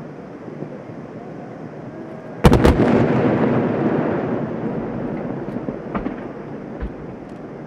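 Several large aerial firework shells bursting almost together about two and a half seconds in: a loud blast of a few quick cracks, then a long rolling rumble that slowly fades. A few faint pops follow near the end.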